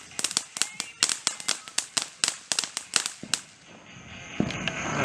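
Consumer fireworks going off in a rapid run of sharp pops, several a second, that stop about three and a half seconds in.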